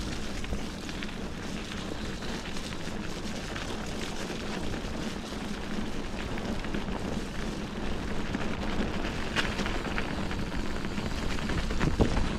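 Steady rushing and rumbling of a bicycle ride: tyres rolling over the trail and wind on the camera microphone, with a few light knocks and a louder thump near the end.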